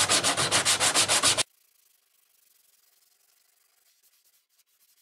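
80-grit sandpaper on a wooden 2x3 block rubbed quickly back and forth along a freshly routered Formica laminate edge, about seven strokes a second, smoothing the rough trimmed edge. It cuts off suddenly about a second and a half in, leaving near silence.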